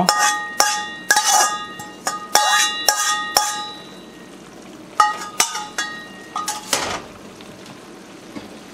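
A spatula knocking and scraping against a carbon steel wok, each knock leaving a short metallic ring, as the stir-fried chicken and vegetables are scraped out into a pan of sauce. After about seven seconds only the low steady hiss of the sauce simmering remains.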